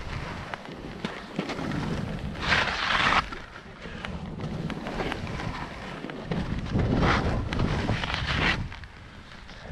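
Skis hissing and scraping through snow, with two louder swishes of turns, one about two and a half seconds in and a longer one around seven to eight and a half seconds. Wind buffets the microphone underneath.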